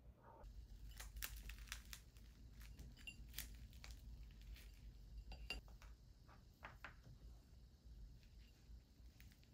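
Faint, scattered clicks and ticks of food handling: a salt bread roll torn apart by hand and a small knife tapping and scraping against a ceramic plate while spreading Greek yogurt, over a low steady room hum.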